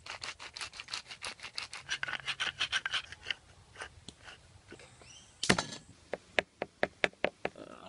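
A wooden spice mill grinding in quick, rasping clicks for about three seconds. After a short pause, a small knife chopping garlic on a wooden tabletop: one loud knock, then a run of sharp taps, about five a second.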